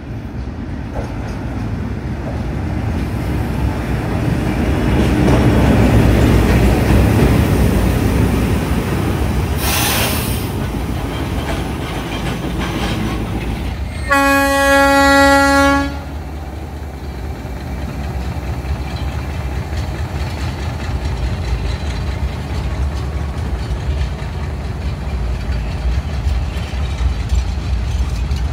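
Sri Lanka Railways Class M8 diesel-electric locomotive passing close under power, its engine growing louder to a peak about six seconds in. It gives one steady horn blast of about two seconds around halfway through, then the wagons and coaches roll past on the rails.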